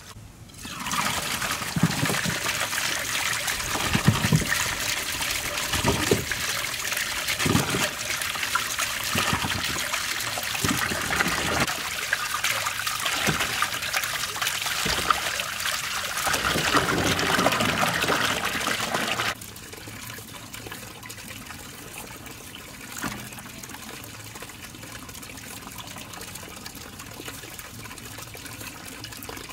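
Water running and splashing, with a series of low knocks every second or two. About two-thirds of the way through it cuts off suddenly to a quieter, steady trickle.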